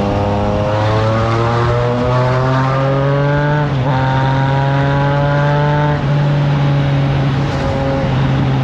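Triumph Trident 660's three-cylinder engine through a FireTong exhaust, heard from the rider's seat while accelerating: the pitch climbs steadily, dips briefly about four seconds in as at a gear change, climbs again, then drops about six seconds in and holds steadier. Wind rushes over the microphone throughout.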